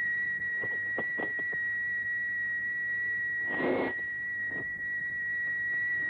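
A steady, high, whistle-like electronic tone held unbroken on the film's soundtrack. A few faint short clicks come in the first second, and a brief rushing noise comes about three and a half seconds in.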